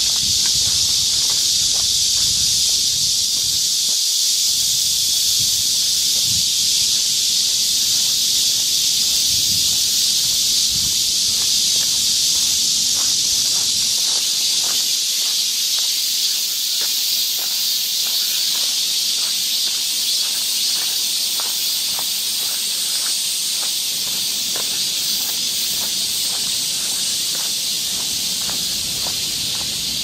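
Dense chorus of summer cicadas: a loud, steady, high-pitched hiss. Faint regular footsteps on a dirt path sit underneath.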